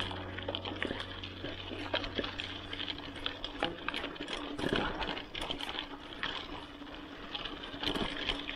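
Mountain bike rolling over a rocky gravel trail: tyres crunching on loose stones, with frequent sharp clicks and rattles from the bike.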